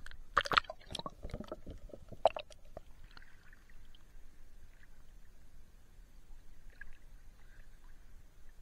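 Sea water splashing and sloshing around a camera held at the surface: a cluster of sharp splashes in the first couple of seconds, the loudest just over half a second in and again just after two seconds, then quieter lapping.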